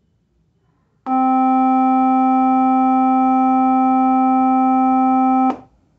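A 260 Hz test tone from a phone frequency-generator app, played through a small portable speaker: one steady, loud low tone with many overtones, starting about a second in and cutting off suddenly about half a second before the end.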